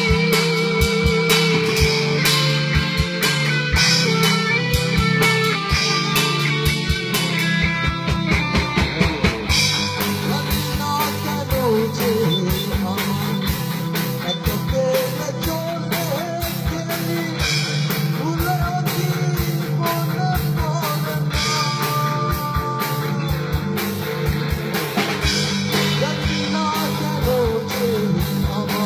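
Rock music played by a band: guitar and drum kit with a steady beat, joined by a singing voice from about ten seconds in.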